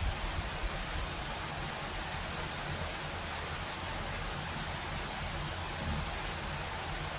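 Steady rain falling, an even hiss with a low uneven rumble beneath and a few faint drop ticks.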